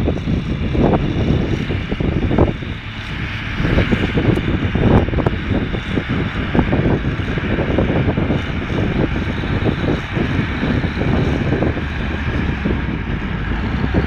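Diesel engine of a wheel loader running steadily as it drives and raises its bucket, with gusts of wind buffeting the microphone throughout.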